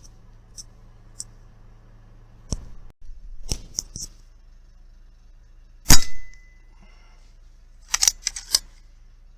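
A single sharp rifle shot about six seconds in, the loudest event, with a short ring after it. Scattered small clicks of the rifle being handled come before it and again in a quick cluster near the end.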